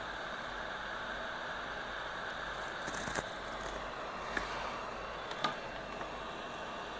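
Steady hiss of a hot air rework station blowing on a logic board, with a few small clicks and scrapes of metal tools between about three and five and a half seconds in.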